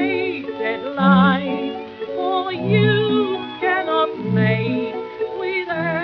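Music from a 1932 music-hall record: a melody with wide vibrato over bass notes that come round about every second and a half.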